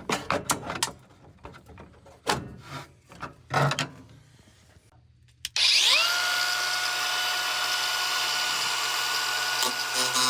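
A series of knocks and clicks of tool handling, then about halfway through a power drill's motor spins up with a quickly rising whine and runs steadily.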